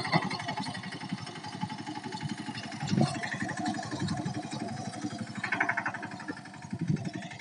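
A Mahindra mini tractor's diesel engine running steadily with an even, rapid chugging while it pulls a tined cultivator through the soil under load.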